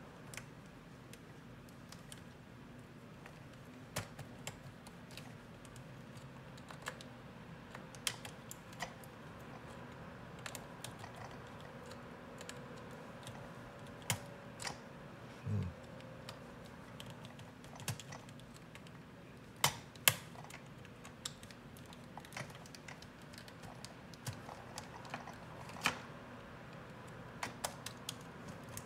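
Irregular small clicks and scrapes of a small screwdriver tip prying at a desoldered component on a circuit board, over a faint steady hum.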